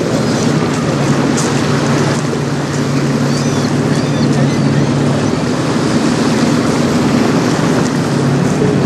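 Steady drone of a boat engine over a constant rush of wind and choppy water. The drone drops away about halfway through and comes back near the end.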